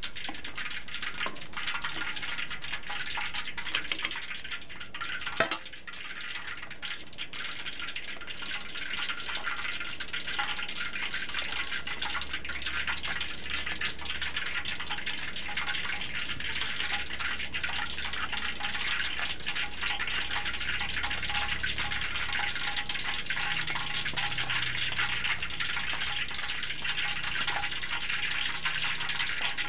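A wok of vegetable soup heating towards the boil on a gas burner: a steady bubbling hiss with fine crackling, and two sharp knocks about four and five and a half seconds in.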